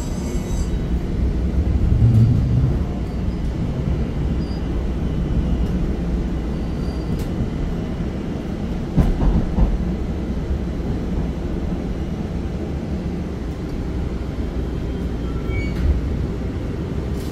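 Pittsburgh Red Line light-rail car running along the track, heard from inside the car as a steady low rumble. There are a few low knocks about halfway through.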